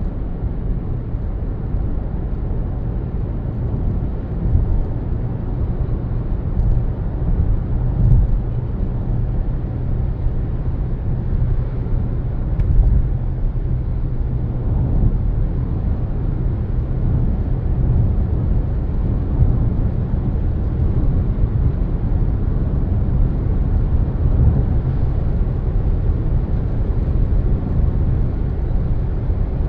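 Car driving along a road: a steady low rumble of tyres and engine.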